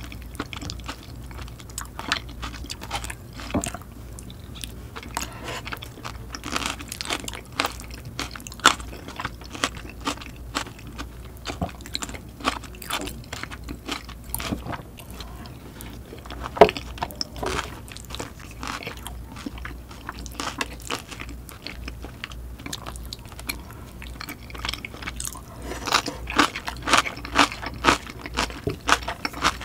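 Close-miked chewing of curry rice, with wet mouth clicks and small crunches. Near the end, louder, faster crunching as she chews napa cabbage kimchi. One sharp click about halfway through.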